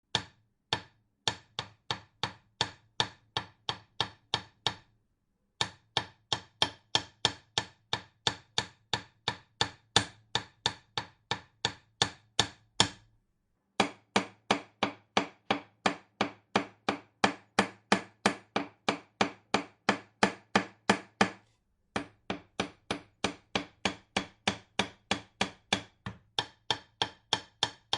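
Hammer driving a nail with quick, even blows, about three a second, each giving a short metallic ring. The blows come in four runs with brief pauses between them.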